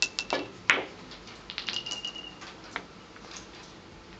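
Hard billiard balls clicking sharply against each other and the table during a keglebillard shot: a quick run of four clicks, then a second cluster of lighter clicks with a short ringing tone about a second and a half in, and one last click.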